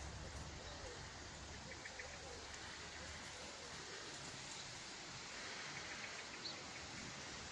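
Faint outdoor garden ambience: a steady low hiss with a few faint, short bird chirps about two seconds in and again near the end.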